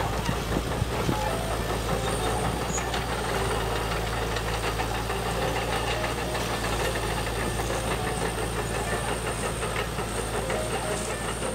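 A model Volvo EC480DL excavator's engine running steadily at idle, a continuous diesel-like sound with a fast, even beat.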